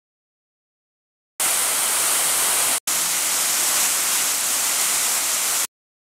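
Steady rush of fountain jets splashing down into the basin. It starts abruptly, cuts out for an instant in the middle, and stops abruptly.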